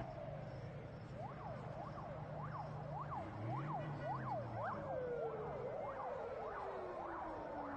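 Emergency vehicle siren on a fast yelp, its pitch sweeping up and down two to three times a second. A second, lower tone slides slowly downward through the second half.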